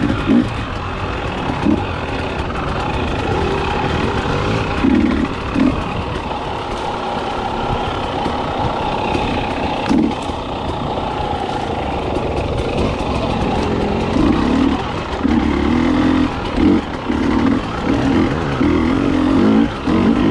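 KTM 300XC two-stroke dirt bike engine being ridden on and off the throttle, with short irregular bursts of revving over a steady running note that come more often in the last few seconds.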